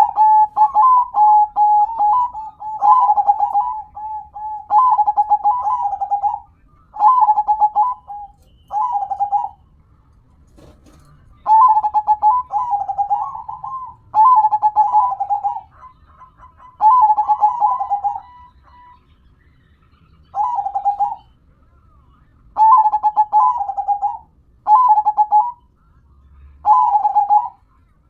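Zebra dove (perkutut) cooing its rhythmic song: bubbling phrases of about a second each, repeated in groups with short pauses between, and a longer pause about a third of the way through.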